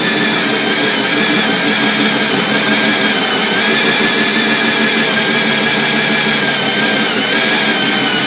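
Electric drill driving a small hole saw through wood, its motor whining steadily, the pitch dipping slightly a couple of times as it loads up in the cut.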